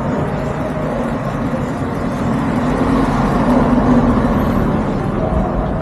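A motor vehicle passing over a steady low rumble, its engine note swelling about three to four seconds in.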